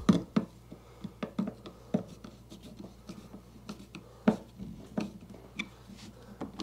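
Screwdriver turning the mounting screws of a garbage disposal mounting ring on a stainless steel sink drain, tightening them evenly. Irregular small metal clicks, taps and scrapes, with two sharper clicks, one just after the start and one a little past four seconds.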